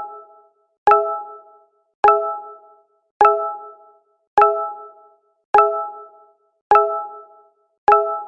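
Google Hangouts notification sound playing over and over: a short chime of a few clear tones, sharp at the start and fading within about half a second. It repeats a little more than once a second, seven times, with silence between.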